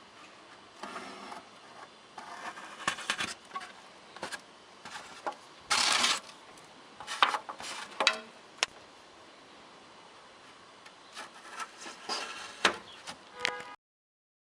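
Scattered rustling, with light clicks and knocks, as of things being handled by hand. The loudest is a short rustle burst about six seconds in. The sound cuts off abruptly just before the end.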